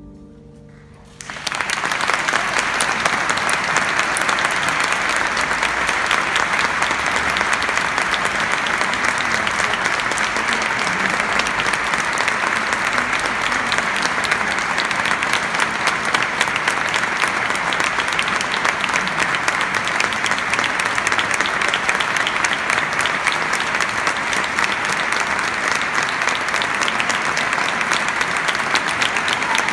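The last held chord of a choir with cello fades out, and about a second in an audience breaks into loud, steady applause that keeps going.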